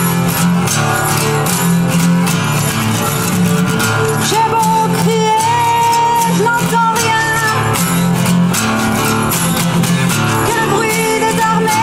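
Cutaway acoustic guitar strummed in a steady rhythm for a dark folk song, with a woman singing long held notes from about four seconds in.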